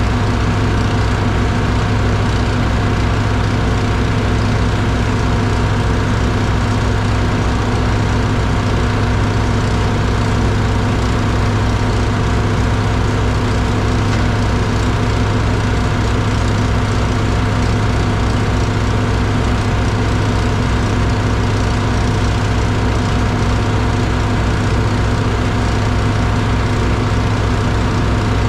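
Diesel engine running steadily at constant speed: an even low hum with a fast regular pulse, no load changes and no saw cut.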